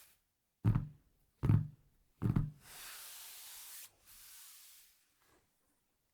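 Three dull knocks about 0.8 s apart, like objects being set down on a desk, followed by two stretches of rustling, sliding noise about a second each.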